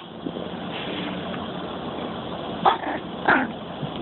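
Chihuahua puppy giving two short yips, a little over half a second apart, in the second half.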